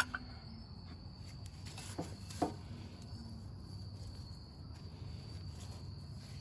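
Faint, steady high-pitched chirring of crickets in the background, with two light clicks about two seconds in.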